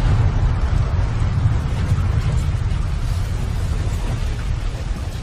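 Loud, deep rumbling noise with a fainter hiss above it, easing off slowly.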